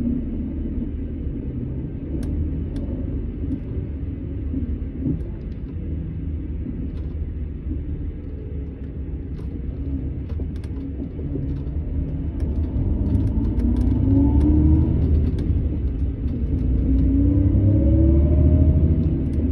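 Setra S 431 DT double-decker coach's diesel engine running with a low rumble. In the second half it accelerates twice, the engine pitch rising each time and growing louder.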